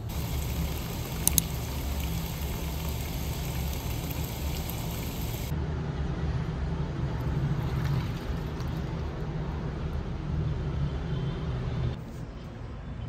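Steady low rumble of city traffic with two sharp clicks about a second in, then a top-loading washing machine running its wash cycle, a steady low hum under water moving in the drum.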